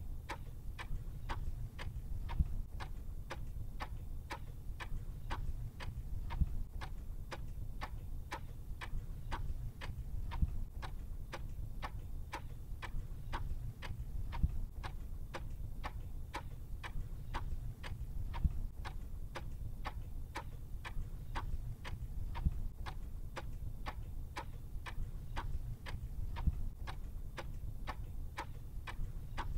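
Steady clock ticking, about two ticks a second, over a low steady rumble.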